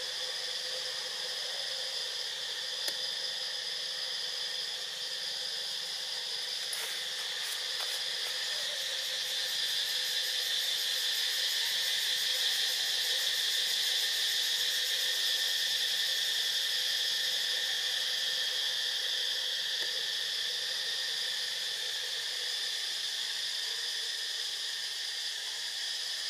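Steady chorus of forest insects: a continuous high buzzing held at several pitches at once, swelling slightly in the middle.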